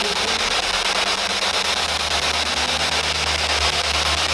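Spirit box radio scanner putting out loud, steady static hiss, with a low hum underneath.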